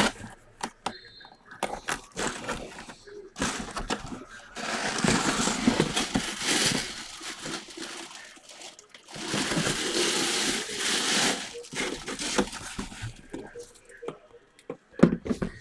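Packaging rustling and crinkling as a full-size football helmet is unwrapped, in two long stretches, with handling knocks and clicks between them.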